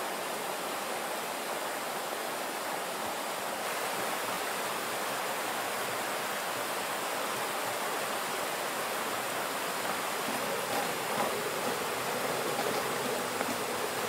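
Steady rushing and splashing of a snowmelt mountain stream that is running unfrozen.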